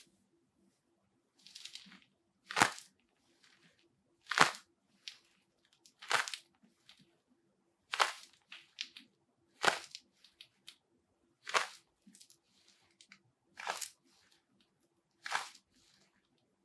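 Goalkeeper glove being handled and flexed on the hand: short crisp crunches of the latex foam and fabric, about one every two seconds.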